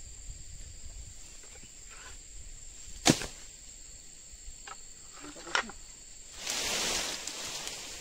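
Steady high drone of insects, with two sharp knocks about three and five and a half seconds in, and a brief rustle of leaves and undergrowth near the end.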